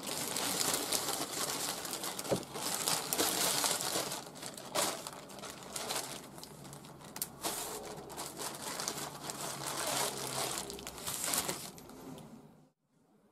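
A zip-lock plastic bag crinkling and rustling as paper-wrapped bars are slid into it and handled, stopping abruptly near the end.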